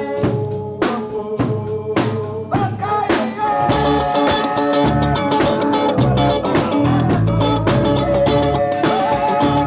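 Live rock band with drum kit and electric guitar playing at a soundcheck. Steady drum hits with held guitar and keyboard notes, and the sound fills out with bass about three and a half seconds in.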